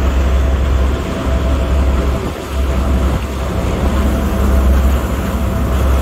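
Motorboat running at speed: the engine's steady drone under the rush of churning wake water, with wind buffeting the microphone in a low rumble that drops out briefly a few times.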